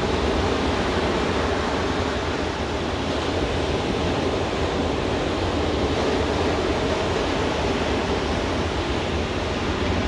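Ocean surf breaking and washing up a sandy beach: a steady rushing noise with a deep low rumble.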